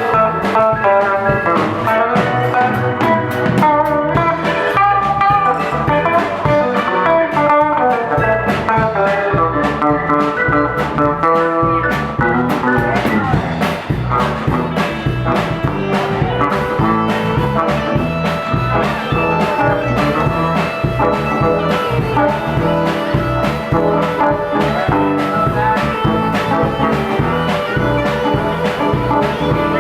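Live rock band playing an instrumental passage: electric guitar lead lines over drums and bass with a steady beat.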